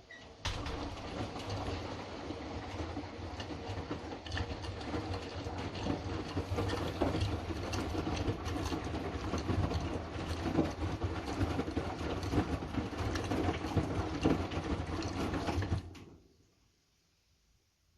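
Hotpoint washing machine tumbling its drum in the main wash: the motor hums while the load churns and rattles for about fifteen seconds, then it stops near the end as the drum pauses between turns.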